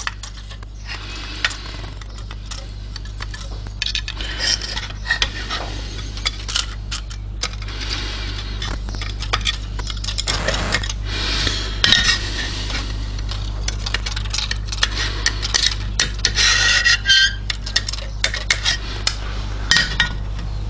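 Light metal clinks, taps and scrapes in irregular clusters, busiest in the second half: steel feeler-gauge blades jangling and being worked under an aluminium straight edge laid across a cast-iron cylinder head, checking it for flatness. A steady low hum runs underneath.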